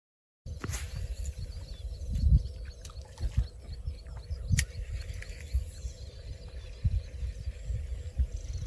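Wind buffeting the microphone outdoors in uneven low gusts, with a faint steady hum and a few light clicks.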